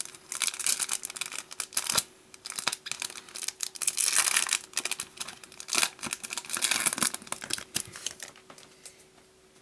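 Foil wrapper of a Yu-Gi-Oh booster pack crinkling and tearing as it is ripped open, in a run of short rustling bursts.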